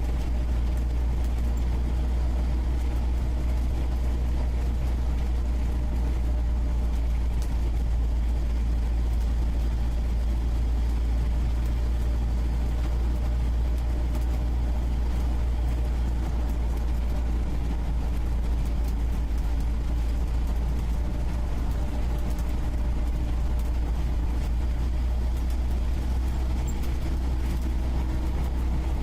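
UAZ 469B's four-cylinder petrol engine running steadily with a deep, even rumble, heard from the passenger seat inside the cabin.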